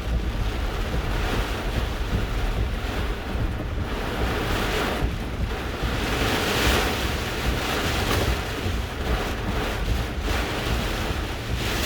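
Hurricane eyewall winds rushing and gusting, with a heavy low rumble of wind buffeting the microphone; the gusts swell and ease, the strongest about six to seven seconds in.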